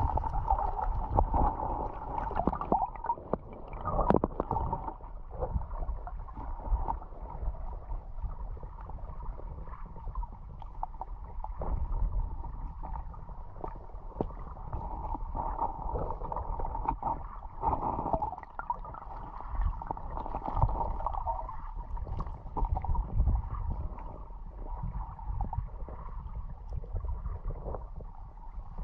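Stream water heard with the microphone underwater: a muffled, steady rumble and gurgle, with scattered clicks and knocks.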